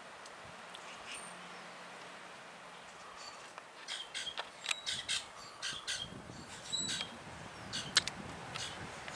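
Wild birds calling: after a few quiet seconds, a quick run of short, harsh calls sets in, mixed with a few high, thin chirps.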